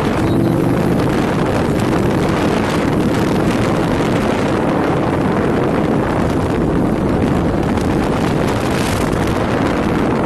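Wind rushing over the microphone of a moving motorbike, with the bike's engine running steadily underneath.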